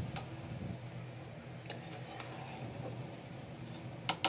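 Steel spoon stirring and scraping cooked rice in an aluminium pot, with sharp clinks of the spoon against the pot, the loudest two close together near the end, over a steady low hum.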